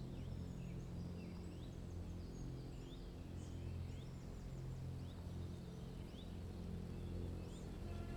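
Woodland birdsong: many short, quick chirps and whistles from several birds, over a low steady hum.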